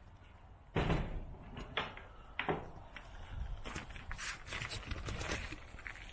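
Footsteps and camera-handling knocks from someone walking with a handheld camera. A loud bump about a second in, two more single knocks, then a looser run of scuffing steps.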